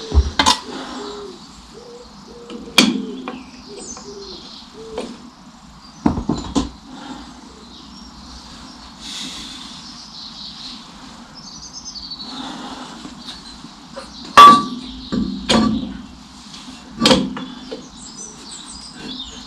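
Scattered metal knocks and clanks, about seven in all, as a brake drum is worked onto the brake shoes and hub of a 1955 Fordson Major tractor, with the shoe adjuster at its minimum. The loudest knock, about two-thirds through, rings briefly.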